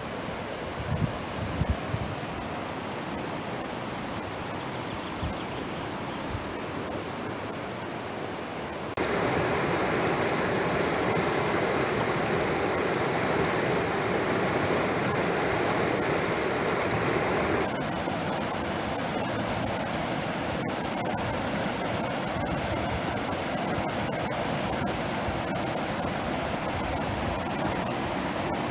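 River rapids rushing over rocks, a steady wash of white water. It gets louder about nine seconds in and a little quieter again after about eighteen seconds, with a few low thumps about a second in.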